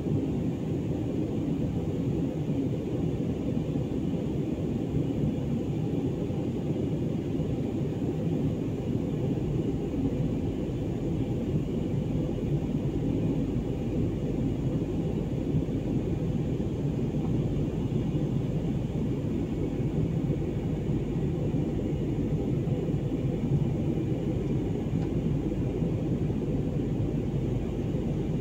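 Steady, deep rumble of a jet airliner in flight, heard from inside the passenger cabin: engine and airflow noise, unchanging throughout.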